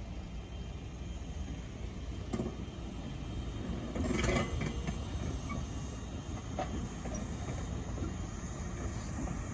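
Nagano Electric Railway stainless-steel electric multiple-unit train rolling slowly past. Its wheels knock a few times, with a louder burst of clatter about four seconds in.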